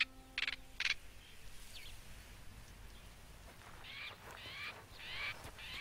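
Male northern black korhaan calling with harsh, rasping bursts, three quick ones in the first second. After a quiet gap, a run of chirping calls, each falling in pitch, comes about three a second near the end.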